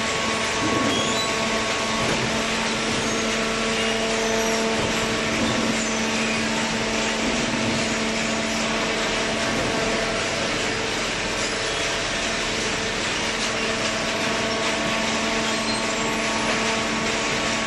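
Automatic-tie cardboard baler running while baling old corrugated cardboard: a steady machine noise with a constant hum.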